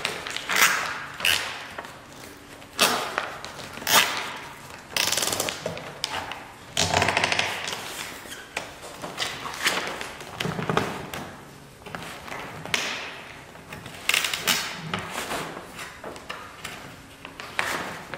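Hands working a fabric aircraft skin over its metal tube frame while pulling nylon zip ties tight. Irregular bursts of fabric rustling and zip-tie ratcheting are mixed with a few sharp knocks.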